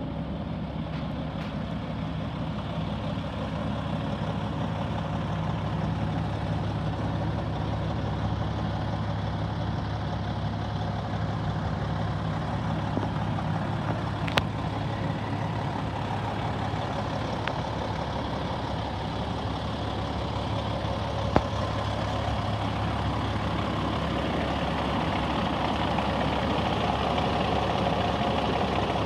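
Kenworth T800 truck tractor's diesel engine idling steadily, with two sharp clicks partway through.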